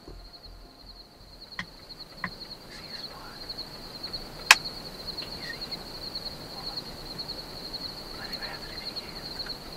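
Evening insects chirping in a steady, high, rapidly pulsing chorus. A single sharp click stands out about four and a half seconds in, with a couple of fainter clicks a second or two earlier.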